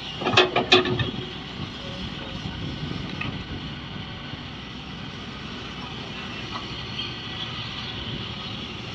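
Shantui excavator running steadily while digging, with three loud knocks in about the first second.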